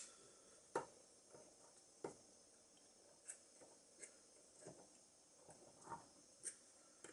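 Faint, sparse clicks and light scrapes of a thin metal tool and tweezers against a small brass lighter part, several separate ticks spread out, the loudest about a second in.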